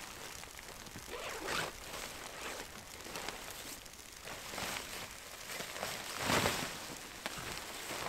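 Nylon tent fabric rustling and swishing as it is lifted, shaken out and gathered, in a series of swishes with the loudest a little over six seconds in.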